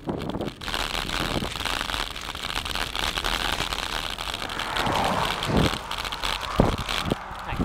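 A car passes a moving bicycle about five seconds in, over a steady hiss of air and tyre noise from the ride. A few short knocks follow near the end.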